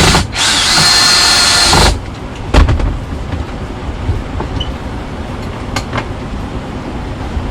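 A cordless power drill runs in one burst of about a second and a half with a steady whine, followed by a single sharp knock and quieter clicks of handling.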